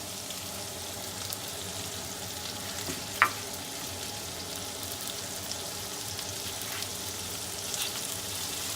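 Shallots and garlic sizzling steadily in hot oil and chicken juices in a frying pan over high heat while being stirred. A single sharp clink about three seconds in is the loudest moment.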